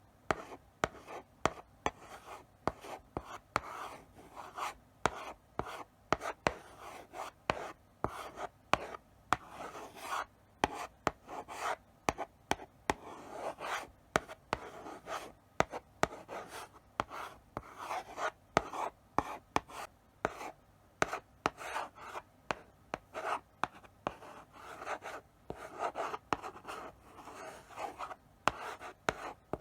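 Chalk writing slowly on a blackboard: a string of short scratching strokes with sharp taps as the chalk meets the board, broken by brief pauses between characters.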